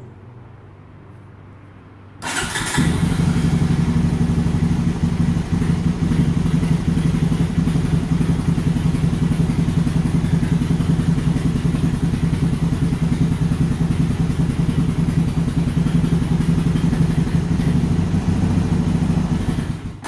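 2002 Honda Recon ES ATV's single-cylinder four-stroke engine being cold-started on full choke with its electric starter after sitting unused for several months: the starter cranks briefly about two seconds in, the engine catches at once and then runs at a steady choked fast idle.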